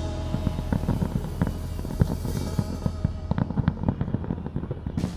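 Fireworks going off in a rapid, uneven string of sharp bangs and crackles.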